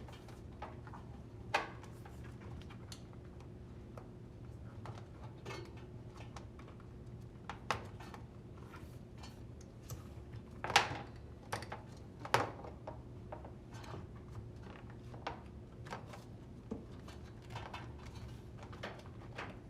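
Scattered light clicks and knocks from a washer connector nozzle being handled and pushed into the tub's seal ports, with a few louder knocks about halfway through, over a steady low hum.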